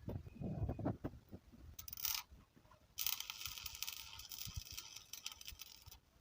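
Metal parts being worked by hand: a few low knocks, a short rasp, then about three seconds of steady scraping that stops suddenly.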